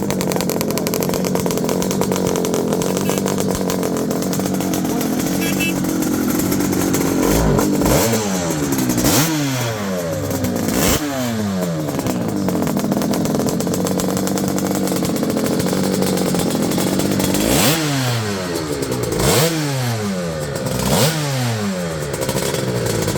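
Bimota 500's two-stroke V-twin engine running at a steady idle, then revved in quick throttle blips: three about a third of the way in and three more near the end. Each blip rises sharply and falls back to idle.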